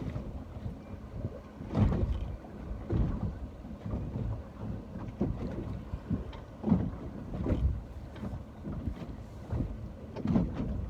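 Wind buffeting the microphone in irregular low gusts over the ocean's wash.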